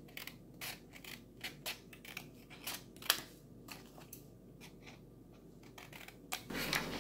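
Scissors snipping through paper: a run of short, sharp snips at an uneven pace.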